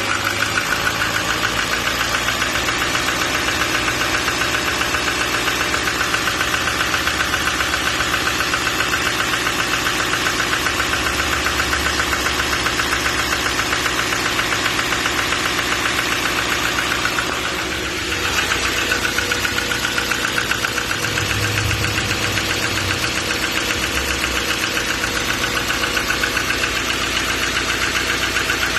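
2014 6.6-litre Duramax V8 turbodiesel running with a fast, regular knock, the fault the owner is recording. The sound dips briefly about seventeen seconds in, then carries on as before.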